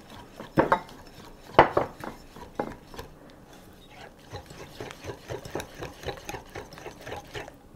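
Wire whisk beating a cream cheese and cream mixture in a ceramic bowl, clicking and scraping against the bowl's sides. A few louder knocks in the first three seconds, then an even rhythm of about five strokes a second.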